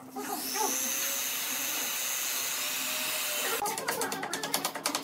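Handheld corded electric drill running steadily with a high motor whine for about three and a half seconds, working into pine wood. It then gives way to a rapid run of clicks, about ten a second, for the last second and a half.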